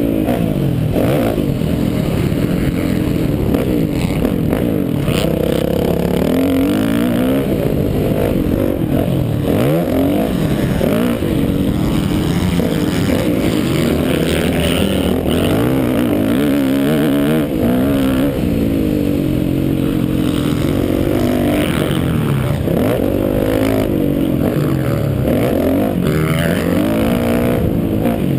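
Yamaha motocross bike engine, heard from the rider's helmet, revving up and down over and over as the throttle is worked and gears are shifted around the track.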